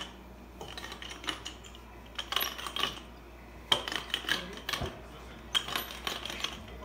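Wooden rolling pin rolling dough back and forth on a stone countertop, giving clusters of light clicks and knocks with each pass.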